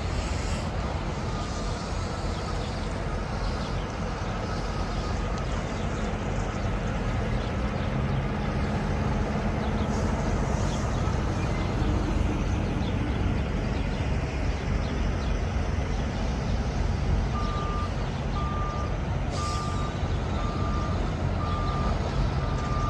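Diesel semi-truck engines running with a steady low rumble, a tractor-trailer pulling past about halfway through. Near the end a truck's reversing alarm starts beeping, about once a second.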